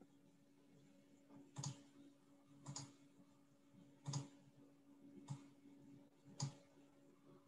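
Computer mouse clicking five times, at uneven intervals of about a second, faint over a low steady hum.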